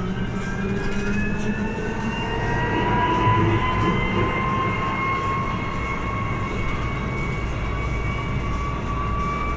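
Irisbus Cristalis ETB 18 articulated trolleybus accelerating: the electric traction motor's whine climbs slowly in pitch, several tones together, over a low road rumble.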